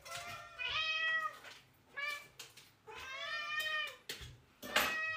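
Domestic cats meowing: four drawn-out meows in a row, the second one short, from cats waiting to be fed.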